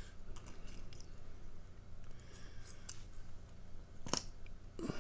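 Small metal parts of a disassembled lock being handled, giving light clicks and clinks, with one sharper click about four seconds in.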